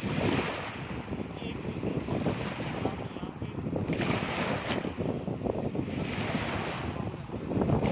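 Waves washing against a shore, with wind buffeting the microphone.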